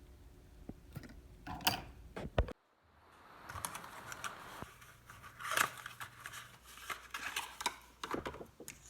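Hands working on small parts of an opened laptop: scattered clicks, taps and short rustles, with a brief drop to silence about two and a half seconds in.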